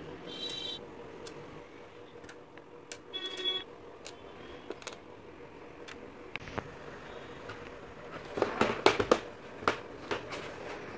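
Small clicks and knocks of a plastic table fan's base and screws being handled and fitted, with a louder run of sharp plastic clicks and clatter about eight and a half to ten seconds in. Two short high chirps sound, one about half a second in and one around three seconds in.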